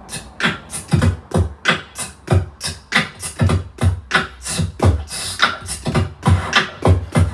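A person beatboxing: a steady rhythm of mouth-made kick-drum thumps and sharp hi-hat-like clicks, about four sounds a second.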